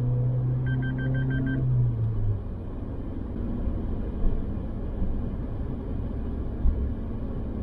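A car driving along a road: steady low engine and tyre noise, its low hum dropping in pitch about two seconds in. About a second in comes a quick run of about six short electronic beeps, and two brief knocks sound later on.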